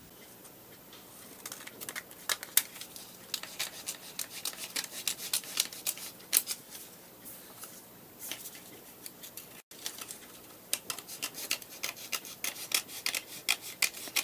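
Scissors cutting through folded coloured paper: a fast run of short snips, a brief lull, then another run of snips as a second sheet is cut.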